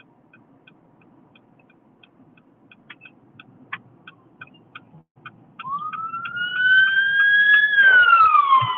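Ambulance siren heard from inside a car: a single wailing tone that comes in about halfway, rises slowly, then falls steadily near the end. Before it, the car's indicator ticks steadily about three times a second as the car pulls over.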